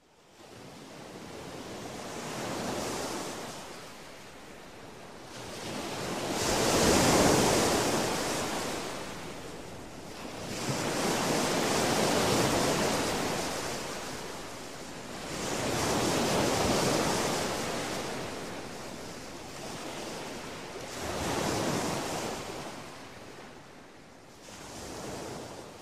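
Sea waves washing in and drawing back, the surf swelling and fading about every four to five seconds, six times over.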